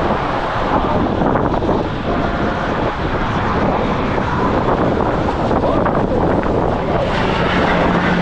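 Wind rushing over the microphone, loud and steady.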